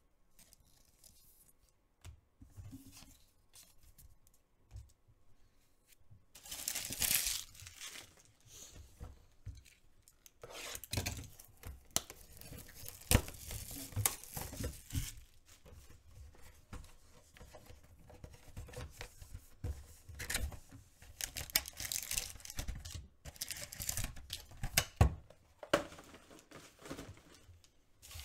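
Plastic trading-card pack wrapper being torn open and crinkled by hand. It is mostly quiet for the first six seconds, then comes one loud tear, followed by a long stretch of crinkling and tearing with sharp crackles.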